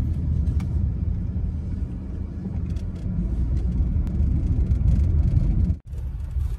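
Steady low rumble of a moving vehicle and road noise, broken off abruptly just before the end and then resuming a little quieter.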